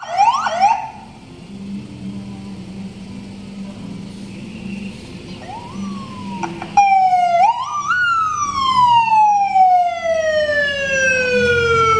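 Siren on a funeral van: a few quick rising yelps at the start, then about halfway through several short rising sweeps and one long wail that falls steadily in pitch as it winds down.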